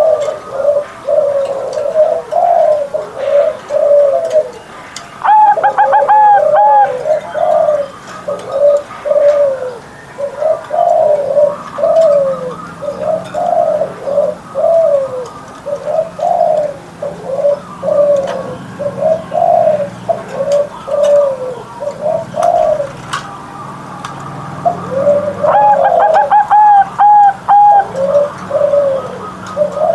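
Zebra dove (perkutut) singing: a long, unbroken run of short, rolling coo notes. Twice, about five seconds in and again near the end, a higher, quicker run of notes breaks in over the cooing.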